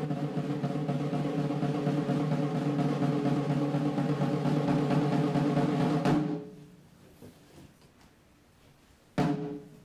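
Snare drum roll held steadily for about six seconds, then ending. A single drum stroke with a short ring follows near the end.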